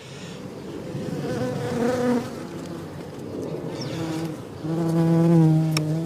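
Honey bees buzzing close to the microphone around an open hive, several bees passing in turn so the buzz rises and falls, loudest and steadiest near the end. A light click sounds just before the end.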